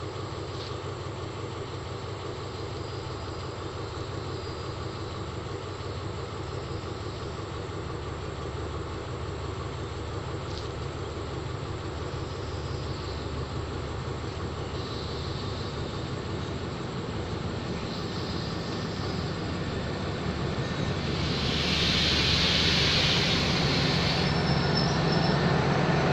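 Diesel locomotive of an approaching passenger train running, growing steadily louder as it nears, with the rumble of the train on the rails. About 21 seconds in a brief hiss rises over it, followed by a short thin squeal near the end.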